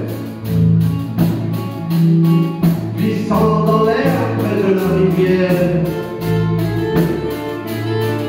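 Live acoustic band playing a folk song: strummed acoustic guitars and a bass under a steady beat, with a voice singing over them.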